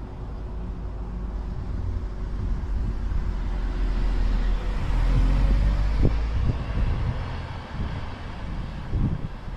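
A vehicle passing: a low rumbling noise that grows louder to a peak about five to six seconds in and then fades, with a couple of sharp knocks near the peak and shortly before the end.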